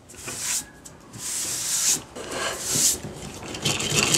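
Yankee-style spiral push drill with a 1/8-inch bit boring into a wooden board: three pushes, each just under a second, the bit scraping through the wood on every stroke.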